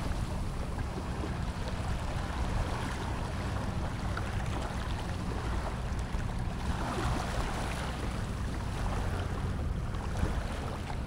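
Small waves washing and lapping at the shoreline, with wind buffeting the microphone as a steady low rumble; the wash swells about seven seconds in.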